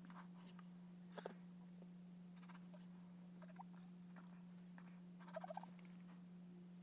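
Near silence: room tone with a steady low hum, a faint click about a second in, and a brief run of quick, faint squeaks about five and a half seconds in.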